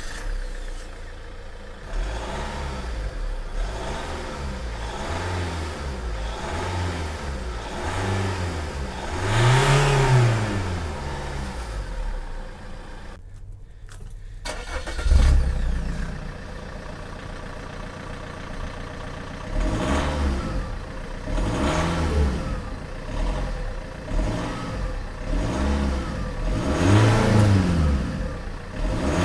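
Vauxhall Insignia 2.0 CDTI four-cylinder turbodiesel idling and being revved in repeated short blips, each rising and falling. There is a biggest rev about ten seconds in, then a brief break and more blips near the end. The exhaust has its rear silencer (back box) removed.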